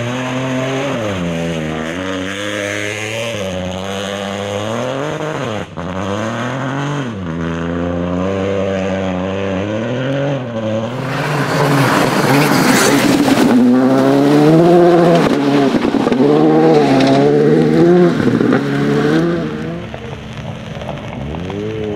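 Rally car engines revving hard on a wet gravel stage, the pitch climbing and dropping sharply again and again with gear changes and lifts. Around the middle a car comes close and a loud hiss of tyres and spray joins the engine for several seconds.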